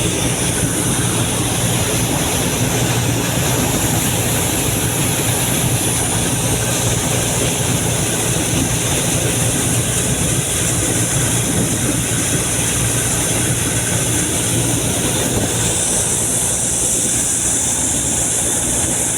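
Compressor running steadily during a borewell trial, driving compressed air down the bore, with a continuous hiss over a low steady hum.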